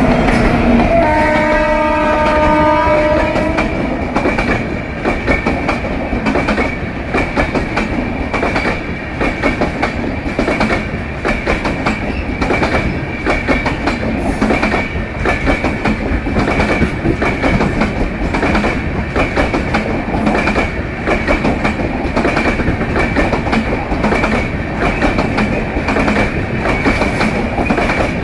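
Intercity passenger train running on jointed track, its wheels clattering over the rail joints in a steady rhythm of about two knocks a second under a constant rumble and a thin steady whine. A train horn sounds once for a couple of seconds near the start.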